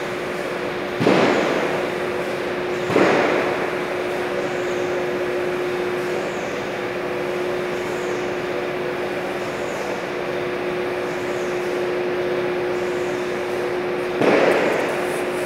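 Steady hum of factory machinery with a steady low tone running under it. The hum is broken by three short, loud bursts of rushing noise, about one and three seconds in and near the end.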